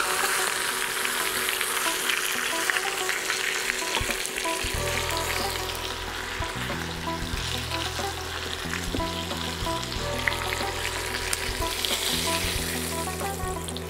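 Chicken quarters sizzling in hot oil in a frying pan, with light clicks of the spatula and spoon as the pieces are lifted out. Background music with a low bassline comes in about five seconds in.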